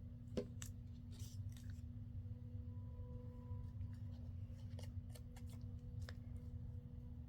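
Scissors cutting paper in short, faint snips, with a sharper click about half a second in, over a steady low hum.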